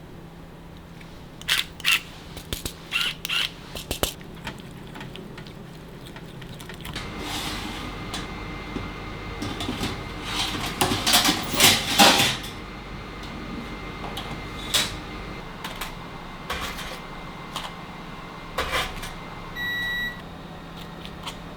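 Kitchen handling sounds: a series of clicks and knocks, then several seconds of clatter over a steady machine hum, and one short electronic appliance beep near the end.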